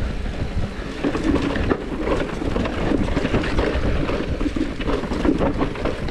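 Mountain bike ridden downhill on a rocky, leaf-strewn dirt singletrack: tyres crunching over dirt and stones, with a steady run of small knocks and rattles from the bike over bumps and a low rumble underneath.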